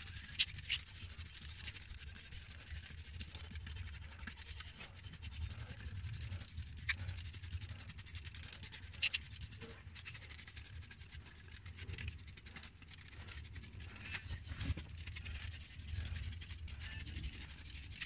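Hand trigger spray bottle spraying engine degreaser onto the engine: a repeated hiss of spray, with a few sharp clicks.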